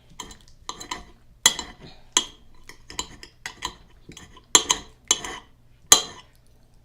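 Close-miked eating at a plate: a string of short, irregular clicks and clinks of cutlery against the dish, a few of them sharper than the rest.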